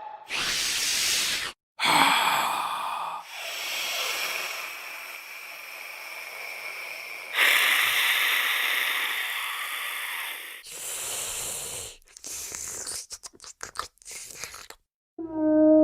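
Series of designed mythical-creature sound effects: breathy, hissing noises lasting from one to several seconds each, separated by short gaps, ending in a quick run of short choppy bursts.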